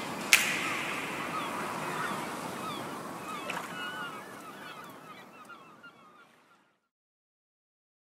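Intro soundtrack of sound effects: a sharp crack just after the start, then a hissy wash with many short chirping calls that slowly fades away to silence about six and a half seconds in.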